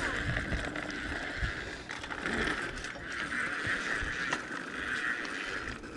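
A bicycle rolling on pavement, its freewheel hub buzzing with fast ticking while coasting. The ticking fades briefly two or three times, when the rider pedals. A low road and wind rumble runs underneath.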